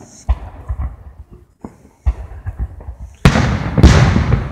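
Aerial fireworks going off: a sharp bang about a quarter second in and another about two seconds in, then a louder run of overlapping bangs and crackling from about three seconds on.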